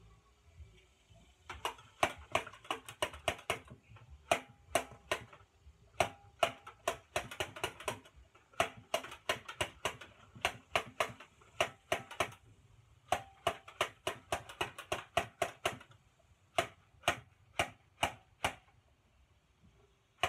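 Rapid runs of sharp, ringing clicks, several a second, coming in bursts of one to two seconds with short pauses between them.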